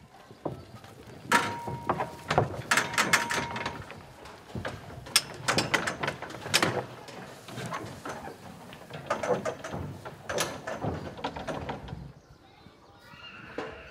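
Metal sheep hurdles and the wooden sides of a race knocking and clanking irregularly as ewes push and jostle through, with a sheep bleating now and then. The knocking dies down near the end.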